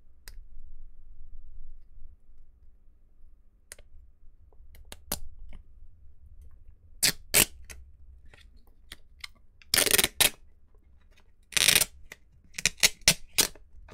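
Sparse light clicks of metal tweezers working on the e-reader's plastic frame. About ten seconds in, loud rustling and crinkling begins from the thin black film around the replacement E-Ink screen as it is handled, ending in a quick run of crackles.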